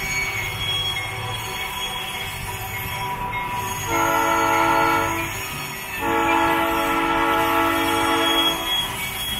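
Air horn of a GE 44-ton center-cab diesel locomotive sounding twice, a short blast about four seconds in and then a longer one of nearly three seconds, over the steady low running of the moving locomotive.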